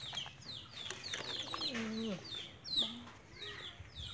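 Chickens clucking, with short high falling peeps repeating about three times a second and a lower drawn-out call about halfway through.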